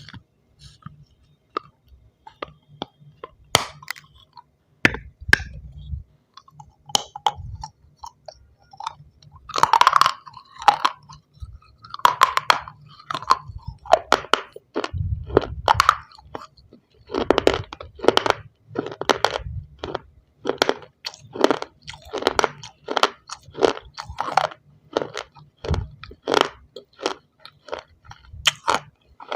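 Close-up biting and chewing of pieces of shell stone, a long series of sharp crunches. Irregular bites at first, then from about halfway in a steady chewing rhythm of roughly two crunches a second.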